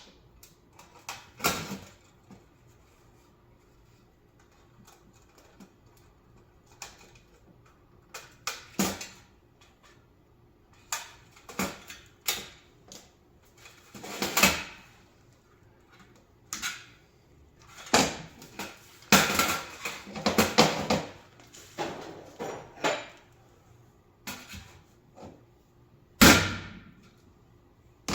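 Irregular metallic clanks, clicks and rattles of a coffee warmer's stainless steel parts and wiring being handled and pulled apart, with a couple of longer clattering stretches midway and a sharp knock near the end.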